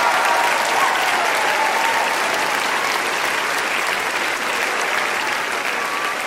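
A large audience applauding, the clapping slowly fading.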